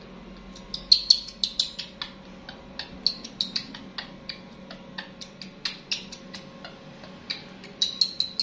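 Baby monkey shrieking in short, high-pitched squeals that come in quick clusters, a distress cry while an ultrasound probe is pressed to its belly.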